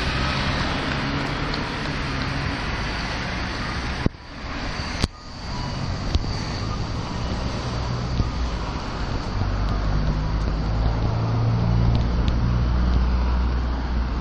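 Road traffic on a city street: cars running past, with a low engine hum that grows louder over the last few seconds as a vehicle comes close. The sound drops out briefly twice, about four and five seconds in.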